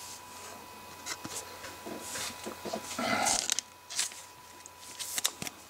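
Clear plastic card sleeve and holder being handled: short, irregular crinkling and rustling with a few light clicks, the loudest stretch about three seconds in.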